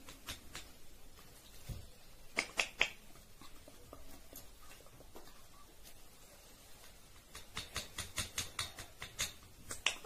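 Rose-ringed parakeet biting and nibbling a plastic toy: sharp clicks and taps of beak on plastic, in short runs of a few quick clicks, a louder run about two and a half seconds in and a longer run near the end.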